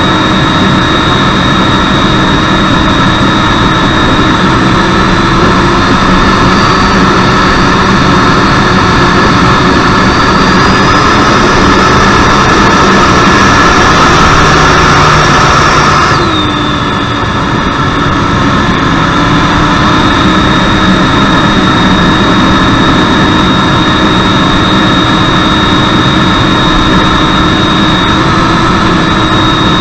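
Freewing T-45 Goshawk's 90mm electric ducted fan, heard from on board the flying model with airflow rushing past. A steady whine climbs gradually in pitch, drops sharply about halfway through, and then holds steady again.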